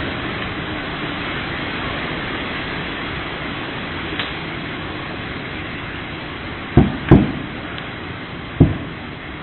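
Fire burning in the wreck of a CRT television: a steady rushing noise, broken by sharp pops, two close together about seven seconds in and a third over a second later.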